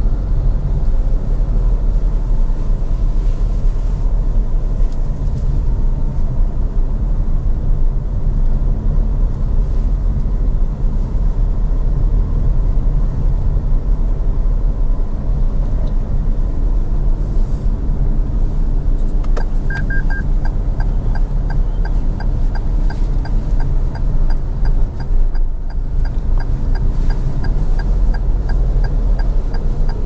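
Car driving, with a steady low rumble of road and engine noise. About two-thirds of the way through, a regular ticking starts, about two ticks a second: the car's turn-signal indicator.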